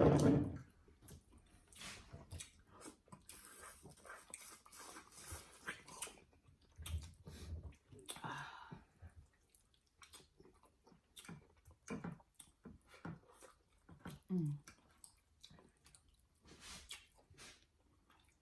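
Close-up mouth sounds of eating roasted pork neckbones: chewing and lip smacking in short, irregular clicks, with a few brief low vocal sounds between them.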